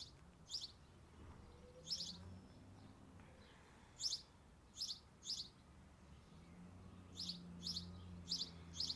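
A small bird chirping: about ten short, high chirps, spaced out at first and coming closer together in the last two seconds, over a faint steady low hum.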